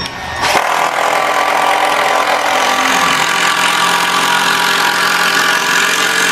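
Cordless impact driver hammering a 3-inch wood screw through a 2x6 pine board into a butt joint. It runs steadily for several seconds and stops suddenly as the screw seats.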